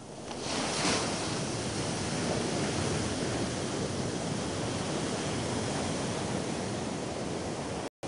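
Sea surf breaking against a rocky shore: a steady rush of waves that swells up over the first second and holds, cutting out for an instant just before the end.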